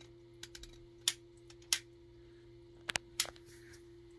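Hinged plastic face frames of a Guess Who? game board being flipped down one after another: a series of sharp plastic clicks, about five loud ones spaced unevenly with a few softer taps among them.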